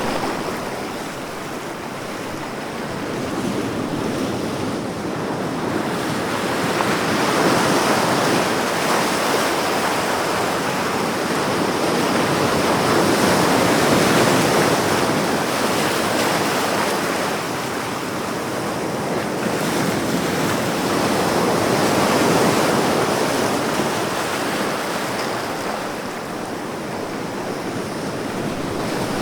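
Ocean surf: a continuous rushing wash of breaking waves that slowly swells and ebbs every several seconds.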